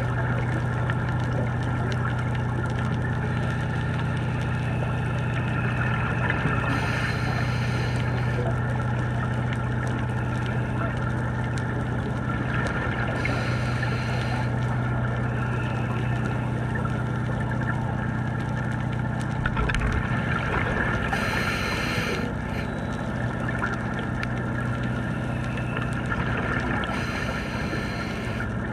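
Underwater sound on a scuba dive: a steady low boat-motor hum carried through the water, broken about every six to seven seconds by a short rush of scuba regulator exhaust bubbles as a diver breathes out.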